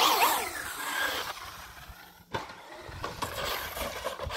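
Electric RC car running on concrete, its motor whine falling in pitch and fading as it heads up a ramp. Then, about two seconds in, one sharp thud as it lands the jump.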